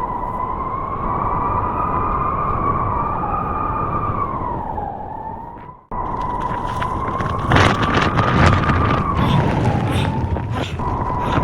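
Howling blizzard wind: a whistling tone that wavers slowly up and down over a steady rush. The sound drops away and cuts out briefly about six seconds in, then returns, with short sharp knocks and rattles joining in the second half.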